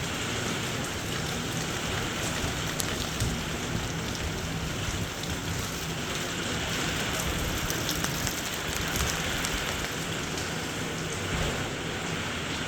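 Heavy rain falling steadily, a dense hiss of drops on surfaces with scattered individual drop ticks.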